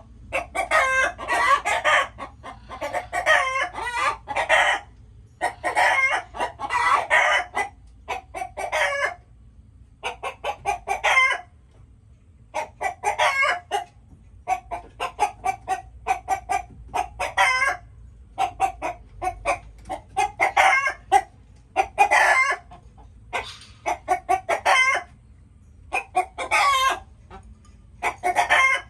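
Chickens clucking in quick runs of short calls, each run lasting a second or two with brief pauses between.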